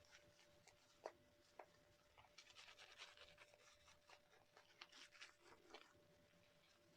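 Near silence, with a faint scratchy brushing of a shaving brush working lather over the face and a few soft clicks.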